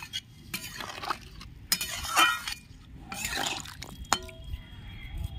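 Flat metal spatula stirring a watery potato and taro curry in a metal kadai, a series of irregular scrapes and clinks of metal on metal.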